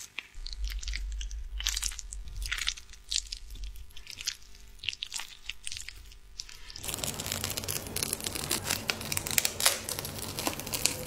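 Close-up sticky, crackly sounds of a flat cosmetic brush working a thick lip mask: sparse wet clicks as it swirls in the jar. About seven seconds in, a denser crackling begins as the mask is brushed onto the lips.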